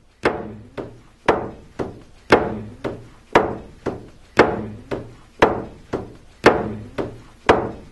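A drum beaten in a steady rhythm, about two strokes a second, alternating strong and softer beats, each stroke ringing briefly.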